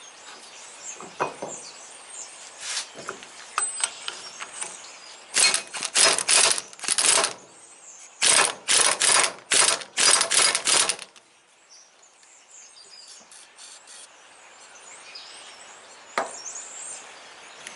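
Aerosol can of chain lube sprayed in about ten short hissing bursts, in two runs, the second starting about eight seconds in. A few light clicks come before the spraying.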